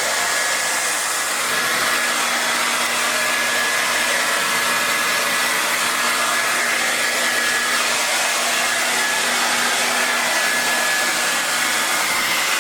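Handheld hair dryer blowing steadily: a loud, even rush of air with a faint steady whine running through it.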